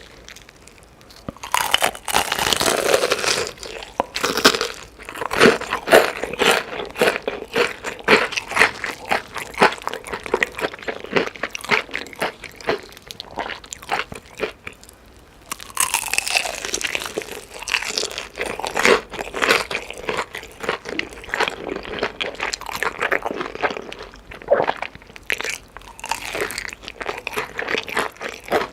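Chicken being bitten and chewed close to the microphone: dense crunching and wet mouth clicks, with the loudest bites starting about a second and a half in and again about halfway through.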